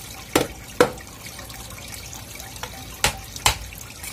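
A mallet knocking the back of a knife down through a large tilapia, four sharp blows in two pairs, with water running steadily under them.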